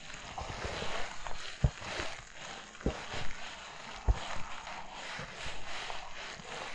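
Footsteps crunching through fresh snow at a steady walking pace, with a soft low thud at each footfall about every second and a gritty crunch in between.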